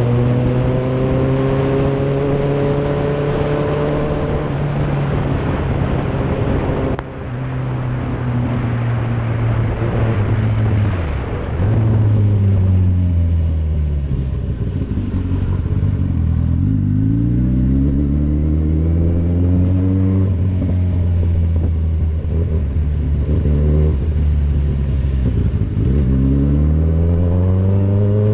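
Motorcycle engine heard from on the bike while riding, its pitch falling as it slows and climbing again as it accelerates, several times in the second half, over a steady rush of wind and road noise.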